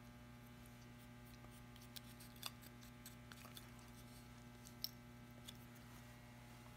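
Near silence: a steady low electrical hum, with a few faint, scattered light clicks as a small varnish brush and a wooden model rudder are handled, the sharpest a little before five seconds in.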